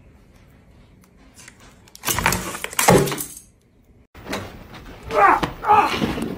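A plastic food tub knocked off a table lands on a wooden floor about two seconds in, a sudden clatter and splash lasting about a second. After a short break, a run of short high-pitched cries follows from about five seconds in.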